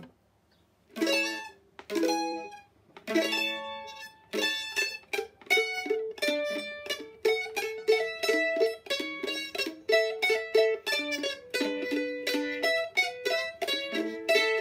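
Solo Kentucky mandolin playing a polka tune in the key of A: three strummed chords about a second apart, then a quick picked melody.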